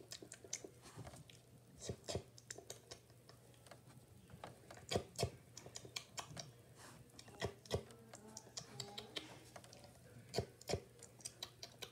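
Faint, irregular light taps and clicks of small toys being handled and pressed against pretend play-dough food, over a faint steady hum.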